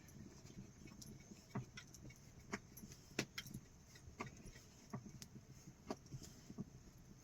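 Light clinks and knocks at irregular intervals, roughly one or two a second, over a faint background noise.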